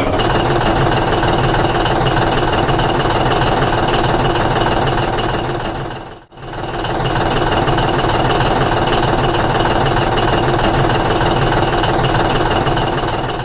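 Steady engine running, with a knocking idle-like rhythm; it fades out and starts again about six seconds in.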